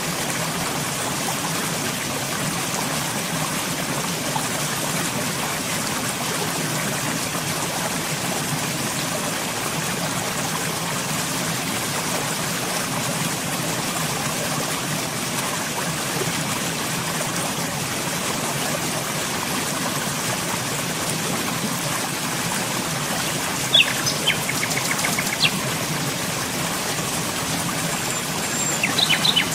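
Steady flow of running stream water, with a small bird chirping briefly near the end.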